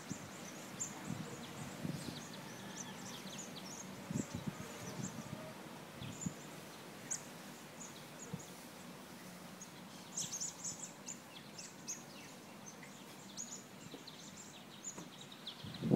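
Small birds chirping in short high calls, on and off throughout, with a denser cluster about ten seconds in. Occasional soft low thuds and rustles underneath.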